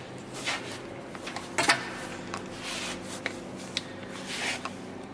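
Rustling and rubbing handling noises with a few sharp clicks, the loudest about one and a half seconds in, over a steady low hum.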